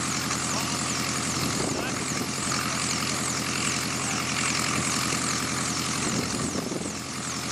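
Enstrom helicopter running on the ground with the pilot at the controls: a steady engine and rotor drone topped by a high whine that wavers regularly up and down.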